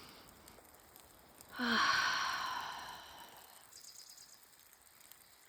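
A woman's long audible exhale, a sigh that starts with a brief voiced note about a second and a half in and fades away over about a second and a half.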